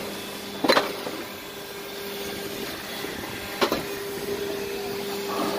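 Two sharp metal clanks, three seconds apart, as scrap tins and cans are dropped into the steel chamber of a hydraulic scrap baling press, over a steady machine hum.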